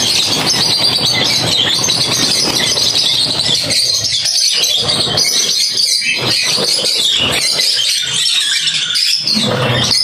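A flock of caged lovebirds screeching and chattering together, loud, continuous and high-pitched.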